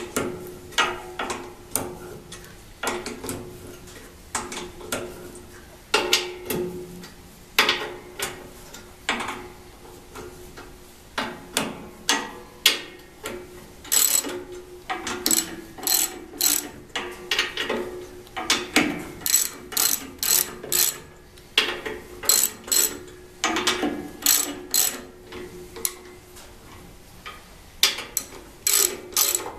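Hand socket ratchet clicking in repeated short runs of strokes as bolts are tightened into a cast-iron bandsaw casting.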